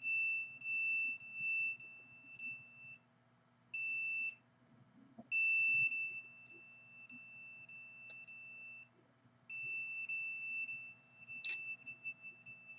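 Handheld signal meter sounding its alarm: a steady high-pitched tone that cuts out twice for under a second and comes back, with a sharp click near the end.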